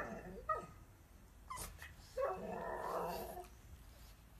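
Pug vocalizing: a few short yips, then one longer drawn-out whining call lasting about a second.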